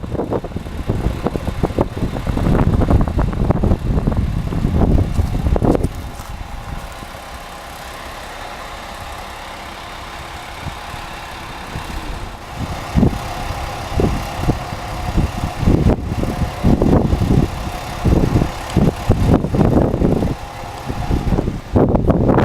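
Strong gusty wind buffeting the microphone, with a steady mechanical hum underneath. The gusts ease for a few seconds in the middle and then pick up again.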